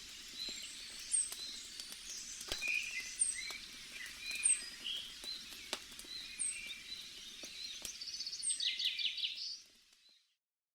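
Campfire crackling with scattered sharp pops over a low steady hiss, with birds chirping and a quick trill near the end. The sound fades out to silence just before the end.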